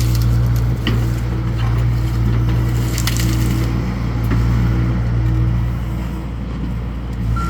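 Excavator's diesel engine running steadily, with scattered cracks and crunches of material being broken up.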